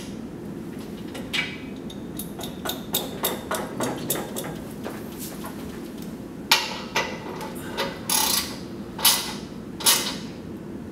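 Socket ratchet clicking in quick runs as the beam-clamp bolts of a steel crane-rail support bracket are tightened on an I-beam. After that come five or six louder, sharp metal clanks of the wrench against the steel bracket and clamp, a few ringing briefly.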